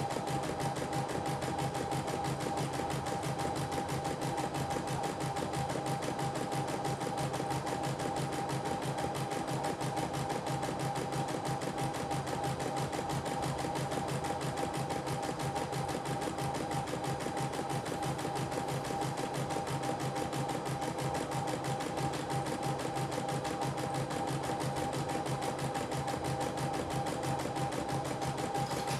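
CNY E960 embroidery machine stitching out an embroidery design in its hoop: a fast, even run of needle strokes over a steady motor hum.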